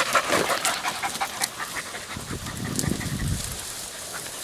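Podenco Andaluz hunting dog panting hard in the heat, with scattered sharp crackles through the first second and a half and a low rumble starting about two seconds in.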